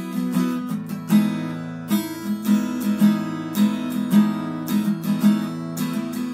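Acoustic guitar played solo: chords strummed and picked in a steady rhythm.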